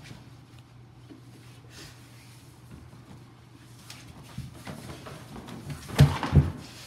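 Low steady hum in a quiet room, then two loud thumps close together near the end.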